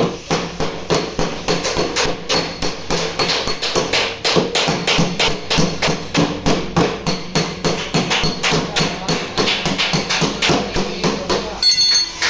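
Hand hammer tapping steadily on sheet metal, about three blows a second, as the dented car door panel is worked out. Background music plays underneath.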